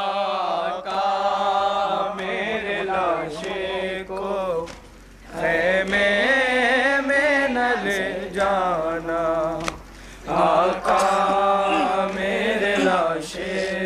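A group of men reciting a noha, a Shia mourning elegy, in unison through microphones: long, wavering sung lines with short pauses between them, about four and a half and ten seconds in.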